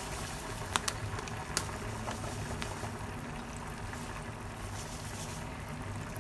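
Melted butter sizzling and bubbling steadily in a hot pan as sugar is poured into it, with a few light clicks in the first couple of seconds.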